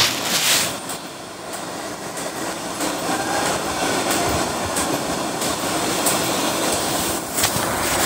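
Steady rumbling road and wind noise on the microphone as the camera travels slowly along a paved street, with brief hissing gusts near the start and again near the end.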